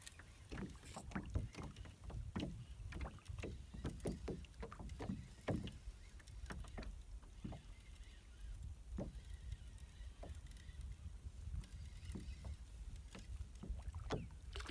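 Small waves lapping and slapping against the hull of a small boat in irregular knocks, over a steady low wind rumble.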